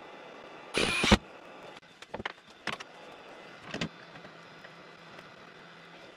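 A Ryobi cordless drill whirs in one short burst, driving a screw through a lathe faceplate into an ash bowl blank, followed by a few light knocks as the heavy blank is fitted onto the lathe spindle.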